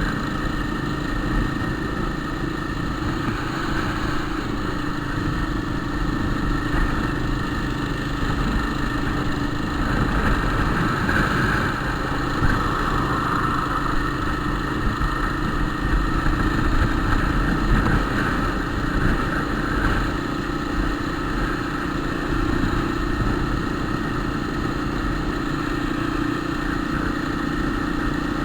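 Small motorcycle's engine running steadily while being ridden, with low wind rumble on the microphone.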